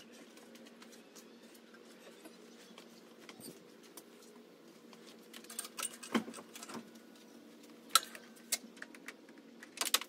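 Scattered light clicks and metallic clinks of hand tools and engine-mount hardware being worked, with a few sharper knocks in the second half.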